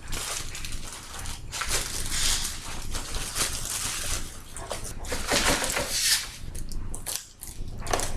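Crinkling and rustling of wrapping and packing material being worked free from the end of a cardboard shipping tube, in irregular bursts with brief lulls.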